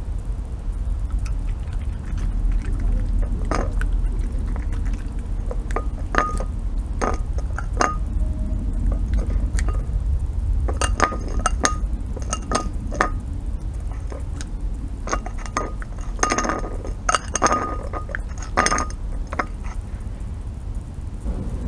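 Red fox cub eating from a ceramic plate: its teeth and snout clink against the plate in scattered runs, thickest in the second half, over a low steady rumble.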